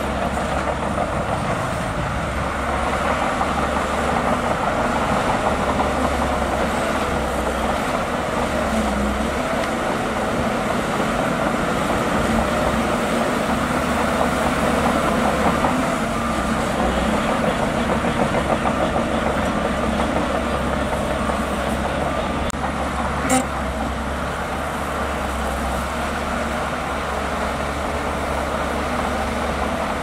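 Old bulldozer at work: diesel engine running steadily under load with a continuous metallic clatter, and one sharp knock about two-thirds of the way through.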